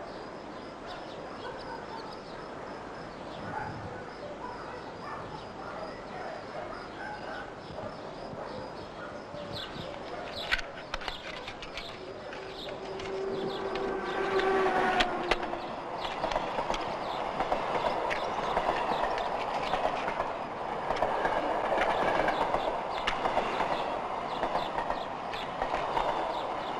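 A train passing: a horn sounds about halfway through, then the louder clatter of the train runs on.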